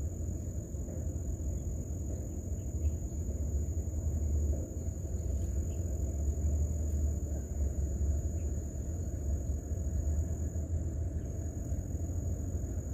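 Steady low rumble with no distinct events, under a constant thin high-pitched tone.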